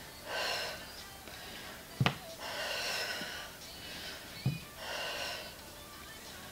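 A person breathing hard through crunches: three audible, breathy exhalations about two seconds apart, with two short knocks in between.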